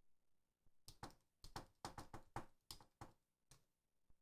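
Faint typing on a computer keyboard: an irregular run of about a dozen quick keystrokes, starting about a second in.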